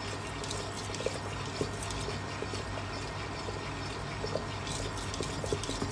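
Metal spoon stirring a thickening watermelon juice and starch mixture in a pot, with scattered soft taps and wet sloshing. A steady low hum runs underneath.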